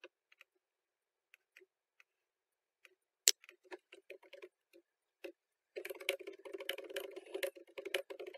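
Scattered faint mouse clicks with one sharp click about three seconds in, then typing on a computer keyboard, sparse at first and fast and steady from about six seconds in.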